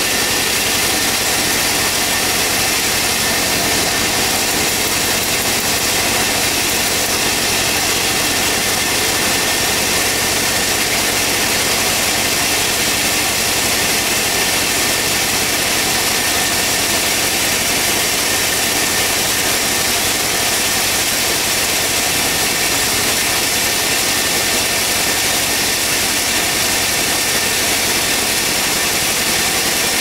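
Engine-driven portable sawmill running steadily, a constant engine drone with a hiss over it.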